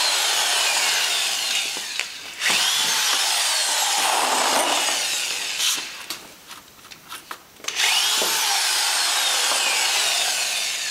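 Cordless drill/driver driving screws into the plywood core of a boat transom, in three long runs with short pauses between them. In each run the motor's whine slides down in pitch, and a few clicks come in the pause between the second and third runs.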